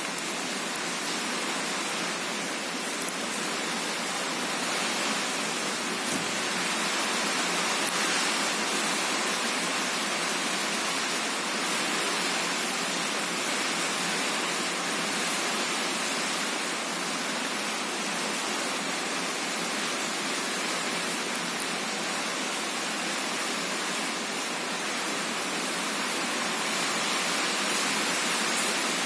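A steady, even hiss that holds at one level throughout.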